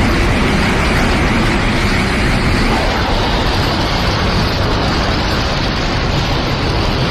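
Anime battle sound effect: a continuous, loud rumbling roar that holds steady with no distinct hits.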